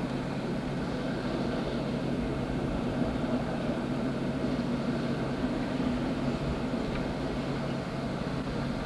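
Steady running noise from inside a moving vehicle, with a constant low hum and no distinct events.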